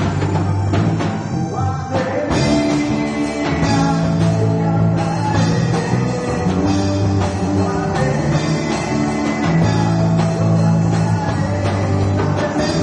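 A rock band playing, with a drum kit and sustained low bass notes that change every few seconds.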